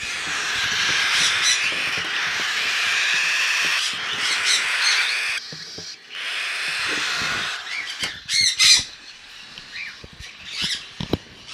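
Baby cockatiel chicks screaming together to be fed: a loud, harsh, raspy din of food-begging calls. It breaks off briefly about five seconds in, starts again, then gives way to a few sharper single calls and quieter sounds.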